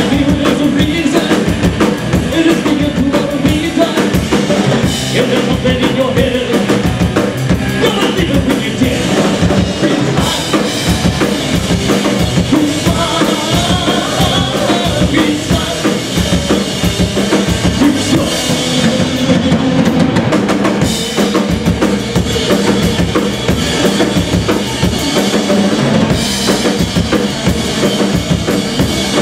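Rock band playing live: a drum kit with kick and snare driving a steady beat under amplified electric guitar and bass guitar, with a male singer's voice in parts.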